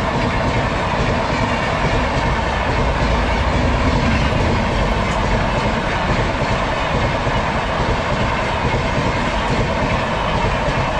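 Steady running noise of a passenger train heard from inside a coach: wheels on the rails and the coach's own rattle, even and unbroken throughout.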